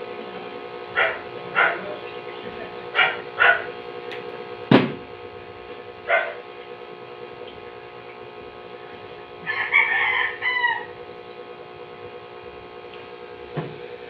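A rooster crows once, about ten seconds in, over a steady background hum. Earlier come several short calls and one sharp click.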